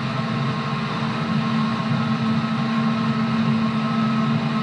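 JR 211-series electric train running steadily: a continuous hum from the traction motors and their external cooling fans, with a faint high whine over running noise.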